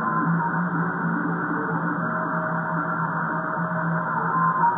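Music received over single-sideband on a Kenwood TS-590 HF transceiver tuned to 14.325 MHz, sounding thin with the highs cut off by the radio's narrow voice passband. Someone is deliberately jamming a 20-meter emergency net with it.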